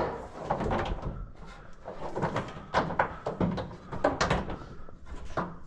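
A series of irregular knocks, clicks and clattering, like things being handled and set down.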